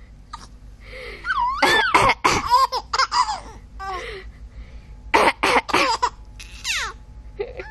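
A person coughs in short bursts and a baby laughs in reply with high, squealing giggles that rise and fall in pitch.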